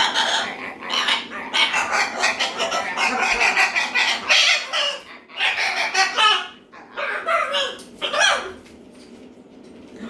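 Blue-and-gold macaw squawking harshly in a rapid string of loud, raspy bursts while play-fighting, dying down near the end.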